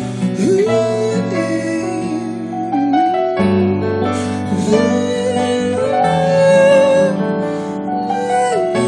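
A man singing into a microphone over piano accompaniment, his voice sliding up to and holding long notes above sustained piano chords.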